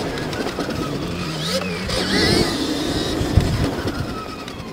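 Electric dirt bike being ridden hard over a rough motocross track: the motor's whine rises and falls in pitch with the throttle, with a sharp knock a little over three seconds in.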